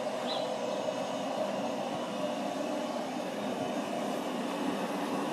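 Steady outdoor background noise, a low even rumble with no distinct events, and one brief high chirp about a third of a second in.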